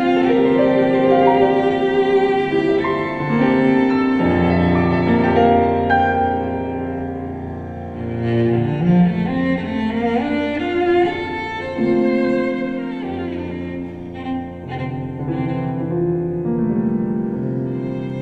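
Solo cello playing long bowed notes in a classical cello concerto, accompanied by piano. A phrase climbs in pitch about eight seconds in.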